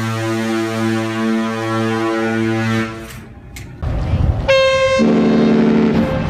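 Cruise ship horns sounding the muster signal. A deep, chord-like blast stops about three seconds in. After a short gap, a short higher note is followed by a longer deep blast, and a second higher note comes near the end.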